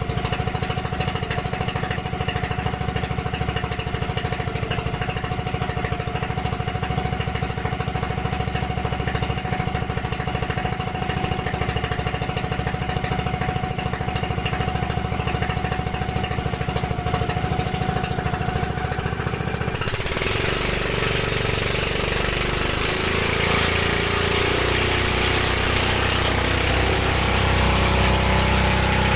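Motor bangka's engine running steadily at speed with a fast, even chugging. About twenty seconds in, a louder, hissing rush of wind and spray takes over as a racing bangka passes close alongside.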